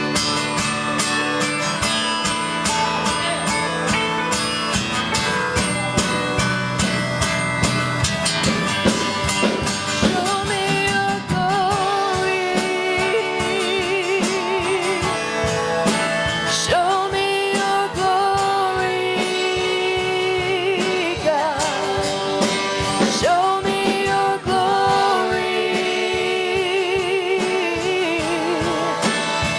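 Live worship music: strummed acoustic guitar with singing, the voices holding long notes with vibrato through the second half.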